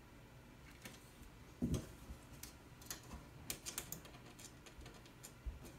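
Cable ties and a power brick being handled in a steel rack-mount tray: scattered light plastic-and-metal clicks and taps, with one louder knock about one and a half seconds in and a quick run of clicks near the middle.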